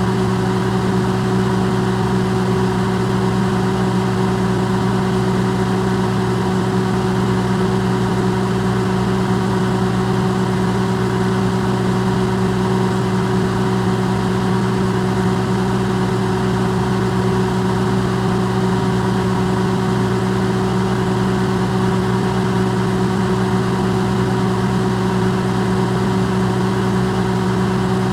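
Electrolux microwave oven running, recorded amplified: a steady, unchanging hum with a strong low drone and a few steady tones above it.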